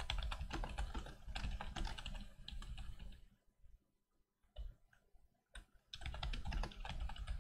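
Rapid typing on a computer keyboard in two bursts, with a pause of about a second and a few scattered keystrokes between them.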